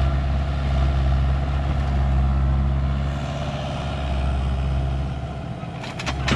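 Heavy engine idling steadily with a low hum, and a few sharp clicks near the end.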